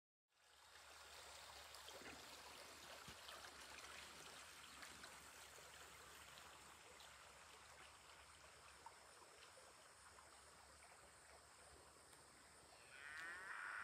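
Faint, even outdoor background hiss. Near the end there is a short animal call, louder than the hiss.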